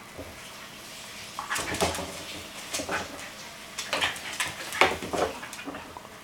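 Scottish terrier puppy playing with a rubber chew toy on a hardwood floor: about half a dozen sharp knocks and clatters as the toy is tossed and hits the floor, with scuffling in between, starting about a second and a half in.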